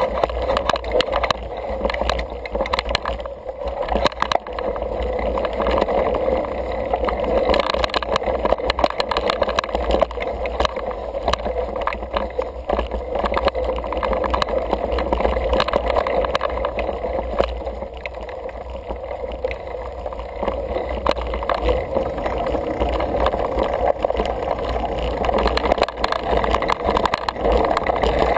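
Single-speed 29er mountain bike riding fast over dirt singletrack: tyres rolling on the dirt and the bike clattering and rattling over bumps, with wind rushing over the camera's microphone.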